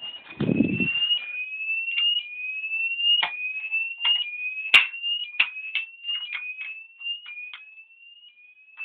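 Fire alarm sounder in full alarm, sounding a rising sweep tone that repeats about once a second. Sharp clicks are scattered through it, with a dull thump near the start.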